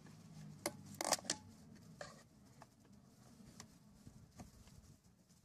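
A metal tool prying and scraping at the plywood cover of a wooden bee package box: a few sharp clicks, the loudest cluster about a second in, then single clicks spaced out. A faint low hum fades out in the first second or so.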